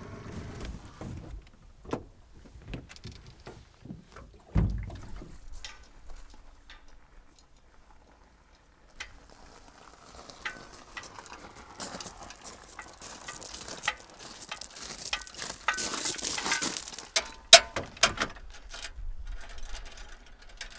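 Irregular knocks, clunks and rattles of objects being handled, with a heavy thump about four and a half seconds in. The second half has a denser spell of clatter and hiss.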